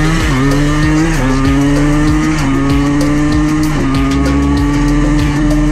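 Yamaha Blaster's single-cylinder two-stroke engine pulling hard at full throttle, its pitch climbing and then dropping at each of several upshifts.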